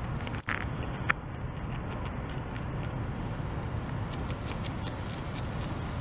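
North American beaver chewing leafy stems held in its front paws: irregular, crisp crunching clicks of its teeth through the leaves, with one sharper snap about a second in, over a steady low background hum.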